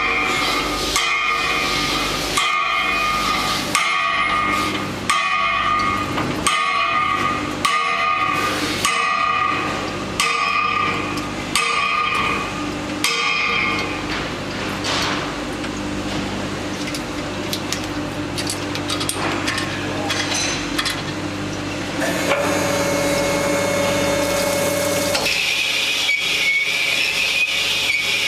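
Workshop machinery working on an engine cylinder block. It repeats a short cycle about every 0.7 s with ringing tones, then settles into a steady hum, and ends in a high steady whine with hiss.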